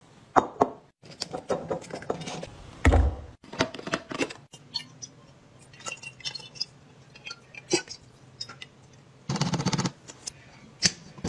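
Glass clinks and taps as a glass jug is handled and filled with fabric softener poured from a bottle: scattered sharp clicks, a heavier knock about three seconds in, and a short denser rush of noise near the end.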